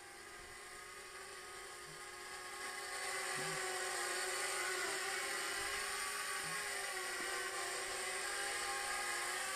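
JJRC H37 Elfie pocket quadcopter in flight: the steady high whir of its four small propellers, growing louder about three seconds in.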